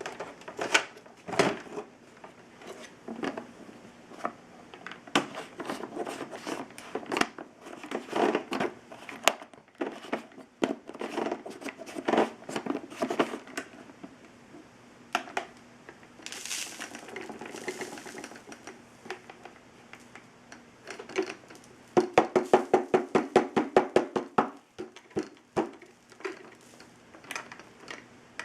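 Irregular clicks, knocks and clatter of hard objects being handled, with a quick run of rattling clicks, about eight a second, lasting a couple of seconds near the end.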